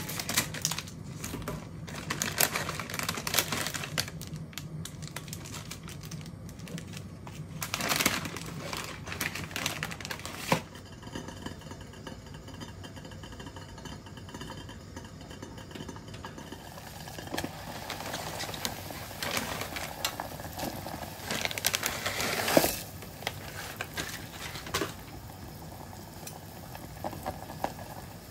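Kitchen prep sounds: a run of quick taps and clicks, then a steady hum for several seconds, then scattered clatter and rustling.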